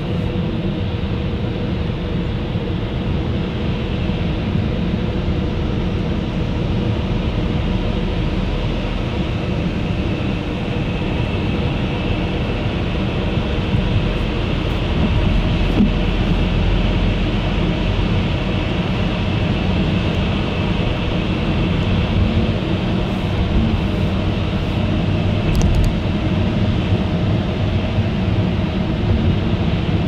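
Road and engine noise inside a moving car: a steady low rumble with faint steady hums.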